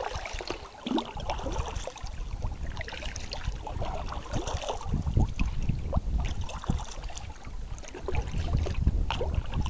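Kayak paddling: a paddle dipping and splashing irregularly, with water dripping and wind rumbling on the microphone.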